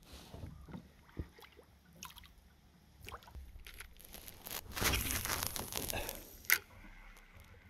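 Water dripping and splashing beside a kayak as a northern pike is let go, with a few knocks of gear on the hull. About five seconds in, a rush of noise lasting about a second and a half as the spinning rod is cast, then a single sharp click.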